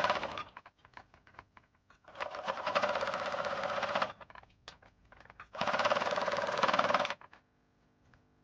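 Sewing machine stitching in short runs: one ends about half a second in, then two more runs of about two seconds and a second and a half, each a fast even rattle of stitches. Light clicks and taps fall between the runs.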